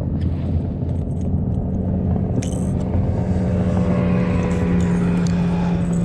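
A motor hums steadily. A second, higher hum grows in about a second and a half in and then holds, with a few light clicks and scrapes over it.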